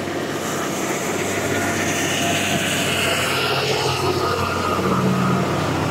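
A motor vehicle's engine running with a steady low hum, under a rushing hiss that swells and then fades over the first few seconds.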